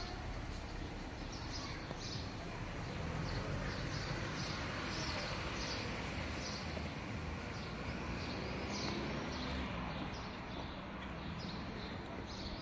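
Small birds chirping repeatedly in quick, short high notes over steady outdoor background noise.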